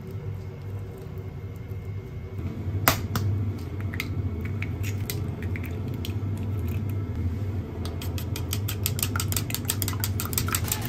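Eggs being beaten quickly in a wooden bowl: the utensil clicks against the bowl in a fast, even rhythm of about nine strokes a second, starting near the end. Before that there is a single sharp knock, a few lighter clicks and a steady low hum underneath.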